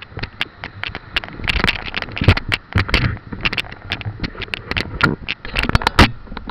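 A rapid, irregular string of clicks, knocks and rattles from a camera being jostled on its mount as it tips toward the road.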